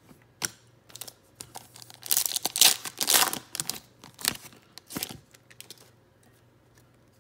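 Foil wrapper of a Donruss Optic basketball card pack being torn open and crinkled by hand: a run of sharp crackles, densest and loudest about two to three and a half seconds in, stopping about five seconds in.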